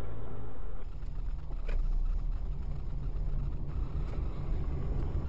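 Steady low rumble of a car driving, engine and tyre noise heard from inside the cabin. The sound changes abruptly about a second in, and there is one brief click shortly after.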